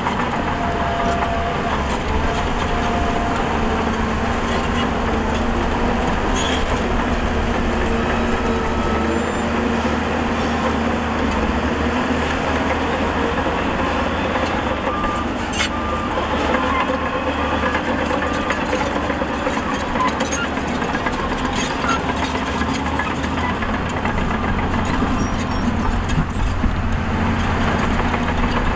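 Heavy diesel engines of a Shantui DH17C2 bulldozer and a Shacman dump truck running steadily under work, with a couple of short sharp knocks.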